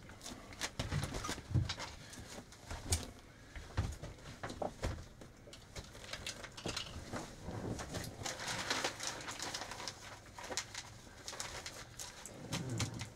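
Clear plastic patterning film crinkling and rustling as it is smoothed down by hand onto double-sided tape, with scattered small crackles and clicks.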